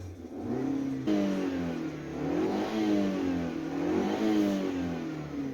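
Chevrolet Spark's S-TEC II 16-valve four-cylinder petrol engine being revved several times at operating temperature, its pitch rising and falling with each blip of the throttle, while the thermostat is being checked.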